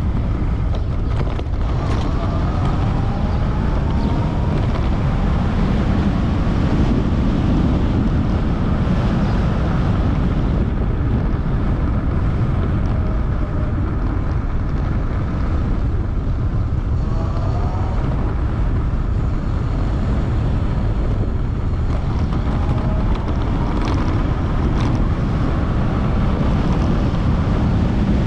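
Wind buffeting the microphone on a moving high-power electric bike, with the electric motor's faint whine gliding up and down in pitch a few times as the speed changes.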